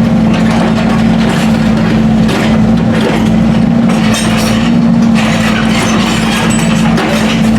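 Heavy road-works machinery running steadily, a constant low engine drone with rattling and clanking over it.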